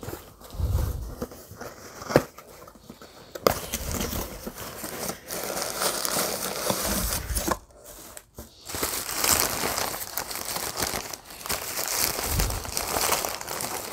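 Paper packing crinkling and rustling as it is pulled out of a small cardboard box and unwrapped from a figurine, with a few sharp clicks from handling the box.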